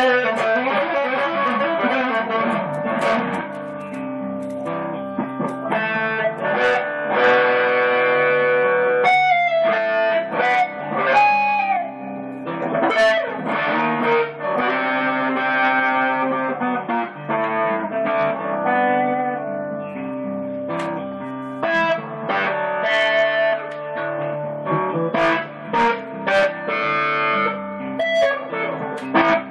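Electric guitar playing a slow, soulful blues lead over a looped backing guitar part from a delay/looper pedal, with held notes and string bends.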